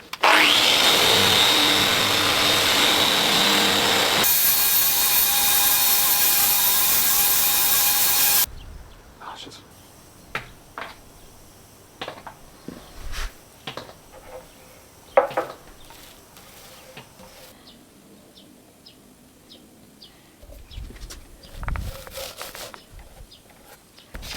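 Electric sander running on beech plywood for about eight seconds, spinning up at the start with a steady high whine, its sound changing about four seconds in, then stopping abruptly. After that, only quiet handling noises: light rubbing and scattered knocks.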